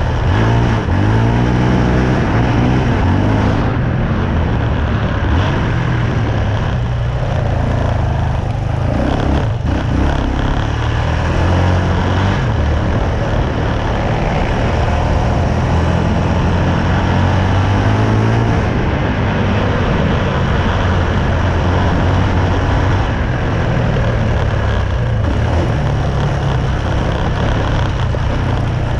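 Yamaha Raptor 700 quad's single-cylinder four-stroke engine running under load off-road, its pitch rising and falling with the throttle several times, over steady rushing noise.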